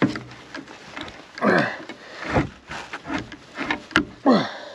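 A cable held by a 22 mm staple in oak being yanked hard by hand, with three drawn-out, strained sounds that fall in pitch. A sharp snap comes about four seconds in as the staple breaks before it pulls out of the wood.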